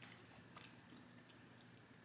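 Faint chewing of soft noodles with a few soft mouth clicks, close to near silence.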